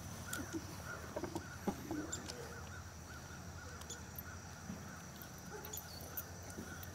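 A short animal call repeating about three times a second over steady open-air background noise, with a few soft knocks and scuffles from a puppy playing at a person's feet between about one and two and a half seconds in.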